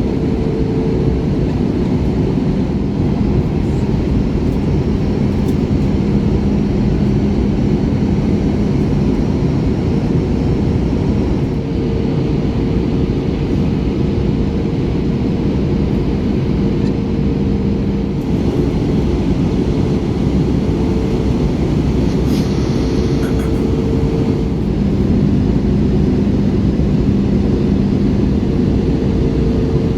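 Airbus A321ceo cabin noise on final approach: a steady rush of engine and airflow noise, with a low hum whose tones fade in and out.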